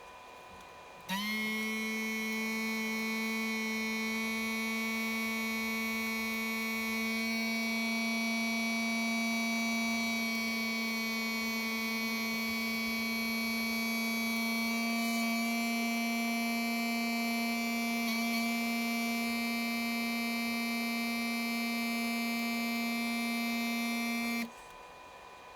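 Steady electronic drone of several held tones, like a sustained synthesizer chord, starting suddenly about a second in and cutting off abruptly near the end.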